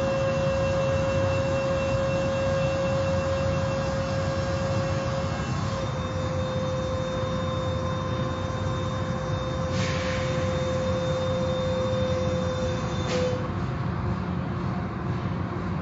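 Car wash machinery running: a steady low rumble with a held whining tone that stops about thirteen seconds in. Two short hisses come about ten and thirteen seconds in.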